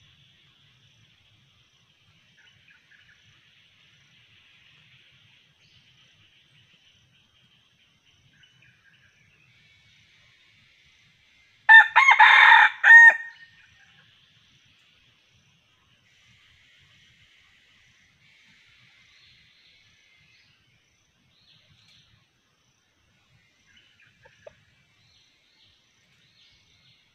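A junglefowl rooster crows once, about twelve seconds in: a short call broken into a few pieces. A faint, steady high insect drone runs underneath.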